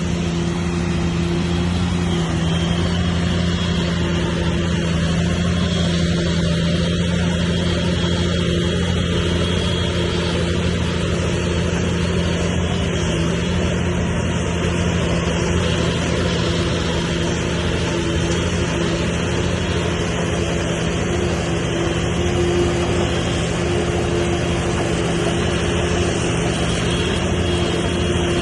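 Heavy diesel engine of earthmoving machinery running steadily at constant speed: a continuous drone with a steady hum, with no revving.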